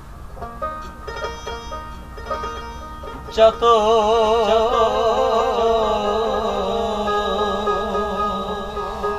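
Bengali folk music: a dotara is plucked over tabla and harmonium. About three and a half seconds in, a man's voice comes in loudly on long held notes with a wide vibrato.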